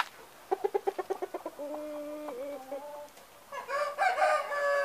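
Rooster clucking in a quick run of about eight clucks a second, then a drawn-out call at a steady pitch. Near the end comes a louder, longer call.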